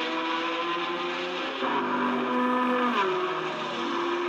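Racing car engines running at high revs, their pitch gliding down about a second and a half in and again about three seconds in, as cars go by.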